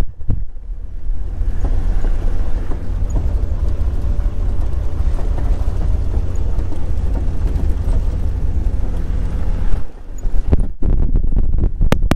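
Jeep Cherokee XJ driving on a dirt road: a steady low rumble of engine and road noise with wind buffeting the microphone. A broader hiss builds in about a second in and drops away near ten seconds.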